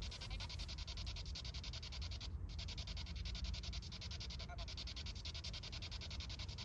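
Spirit box (a sweeping handheld radio) giving a fast, even pulsing rasp of static that briefly cuts out twice.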